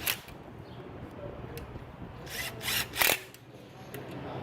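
Bolts on a sterndrive water pump housing being run in with a tool: a short rasping burst right at the start, then a quick run of about four more between two and three seconds in, over a steady low hum.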